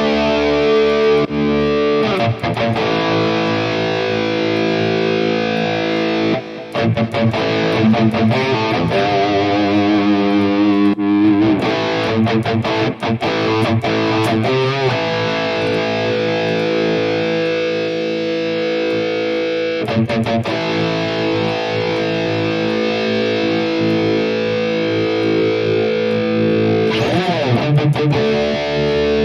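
High-gain distorted electric guitar played through a digital amp modeler with a Mesa Orange V30 cabinet impulse response: sustained, heavy chords broken by a few short stops, with a wavering, bent lead phrase about a third of the way in.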